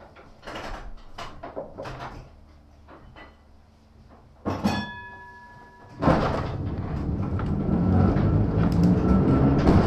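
Aboard a 1915 Ringhoffer tram: a few light knocks and clatter, then a single ringing strike of the tram's signal bell about four and a half seconds in. About a second later the tram starts moving, its traction motor hum and wheel rumble building steadily louder.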